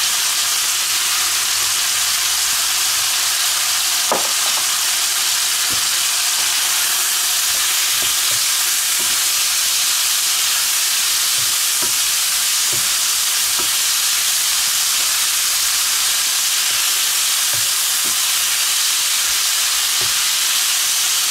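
Chicken strips sizzling in hot oil in a wok, a steady frying hiss, with occasional light knocks as a wooden spatula stirs them in the pan; the clearest knock comes about four seconds in.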